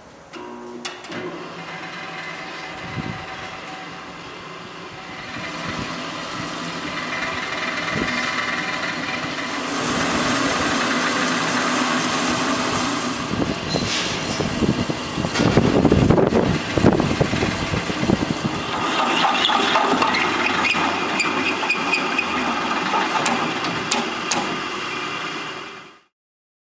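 Buffalo 16" x 16" drill press with a 1 hp motor starting up and running, then its bit cutting a 1-inch hole through thick metal plate: a steady motor hum under the grinding, crackling noise of the cut, loudest about halfway through. The sound cuts off suddenly near the end.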